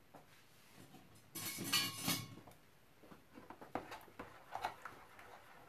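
Kitchen utensils and dishes handled while food is moved into a plastic storage container: one loud scraping clatter about a second and a half in, lasting under a second, then light knocks and clicks.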